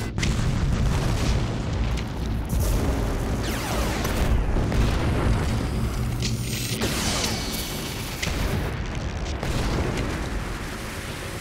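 Animated-film explosion effects: a continuous barrage of explosions with a deep booming rumble and several sweeping rushes passing through.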